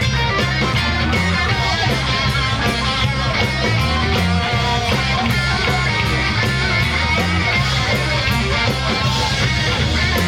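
Rock band playing an instrumental passage: guitar over bass and drums, with a steady beat and cymbal hits.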